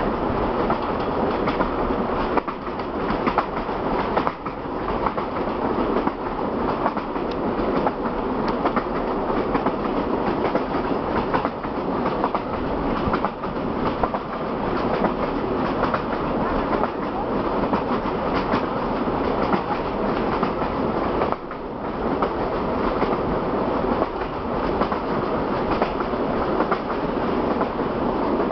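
Train running steadily along the rails: a continuous rumble with wheel clatter, briefly dropping away about three-quarters of the way through.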